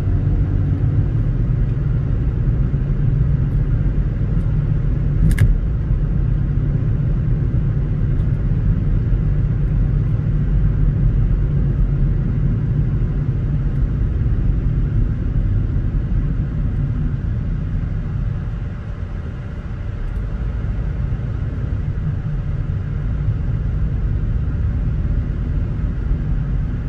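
Steady low rumble of a car being driven: engine and tyre noise on the road. A single sharp click sounds about five seconds in.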